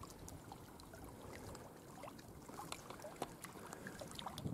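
Small campfire crackling quietly, with scattered irregular pops and snaps over faint low background noise.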